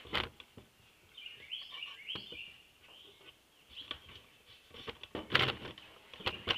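Small birds chirping, a quick run of twittering notes for a couple of seconds, with scattered knocks and bumps, the loudest pair just past the middle.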